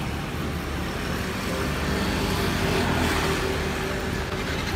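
Street traffic: a motor vehicle passing on the road, its engine and tyre noise swelling slightly around the middle.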